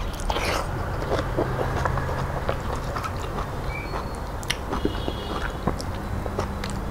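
Close-miked chewing of a mouthful of rice and dal eaten by hand, with many small wet mouth clicks and the squish of fingers mixing food in a steel plate, over a steady low hum.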